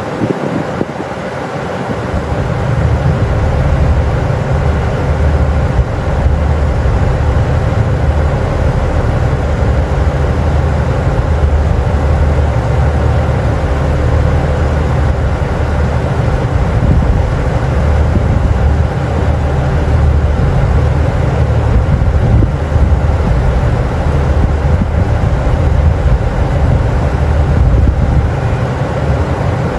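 Cummins diesel engines of a standing KiHa 85 series railcar idling, a steady low drone that grows a little louder about two seconds in.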